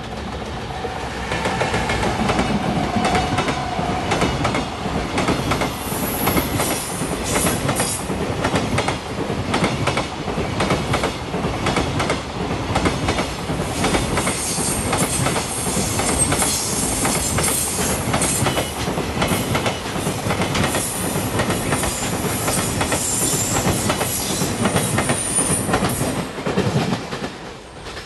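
Freight train hauled by a JR Freight EF210 'Momotaro' electric locomotive rolling past: a steady run of wheels clicking over rail joints, with high wheel squeal now and then. It builds up at the start and dies away near the end.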